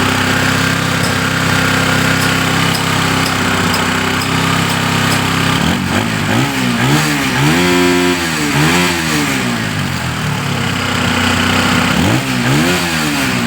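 Bajaj Pulsar NS200's single-cylinder engine running at a slightly raised idle after a full engine rebuild, left running so the fresh engine can run in. About six seconds in, the throttle is blipped several times, revving up and falling back, and once more near the end.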